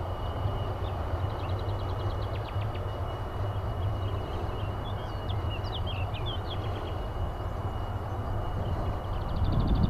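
Distant jet fighter engine rumble, steady and low, growing louder near the end as the aircraft draws closer. Small birds twitter over it, with two quick trills and scattered chirps, and a thin steady high tone runs underneath.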